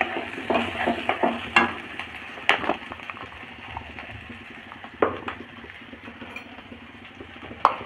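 Mashed potatoes frying in hot oil in a metal kadhai, with a steady sizzle. A wooden spatula stirs and scrapes against the pan, giving a run of knocks in the first three seconds and a couple more about five seconds in.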